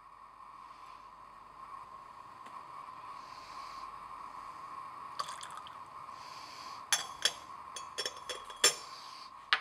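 Glass watch glass clinking several times against the rim of a glass beaker as it is set down with tongs, the loudest clink near the end. A steady low hiss runs underneath.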